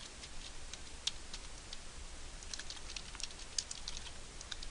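Faint, irregular clicks of keystrokes typed on a computer keyboard.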